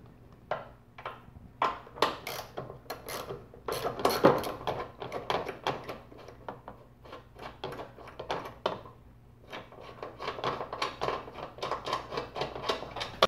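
Hand ratchet clicking in quick runs while a battery hold-down bolt is loosened, with light metallic taps and rattles of the socket and extension; the clicking is densest in two spells, with a sparser stretch between.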